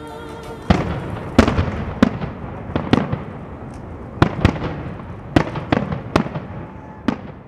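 Fireworks going off: about a dozen sharp bangs at irregular intervals, each trailing off in echo.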